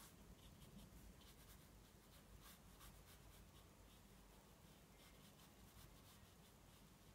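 Faint, short, irregular strokes of a round watercolour brush dabbing paint onto textured watercolour paper, over low room tone.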